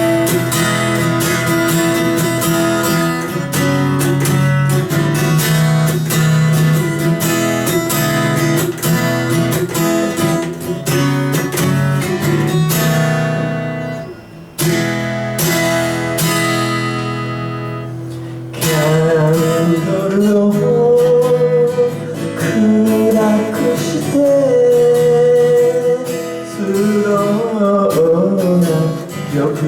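Acoustic guitar strumming the chords of a song's intro. About halfway through, a single chord is struck and left to ring out before the strumming picks up again.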